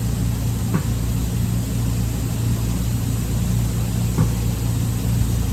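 Steady low engine hum with two brief sharp knocks, one about a second in and one near the end.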